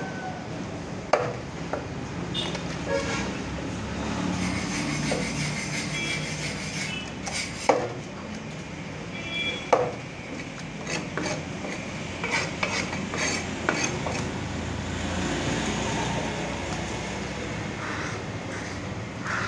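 A large knife slicing shark flesh on a wooden chopping block, with a few sharp knocks of the blade on the wood. A steady traffic rumble runs underneath, with a few short horn toots.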